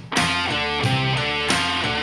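A song with strummed guitar chords over a strong bass line, played back through Creative Pebble Plus 2.1 desktop speakers with their subwoofer and picked up by a microphone, without equalization. The music drops out for a moment just at the start.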